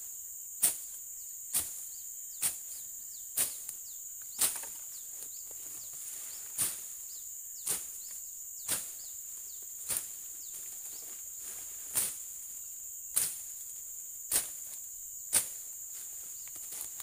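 Machete blade chopping through shrubs and undergrowth, about a dozen sharp whacks at roughly one per second, pausing briefly twice. A steady high insect drone runs underneath.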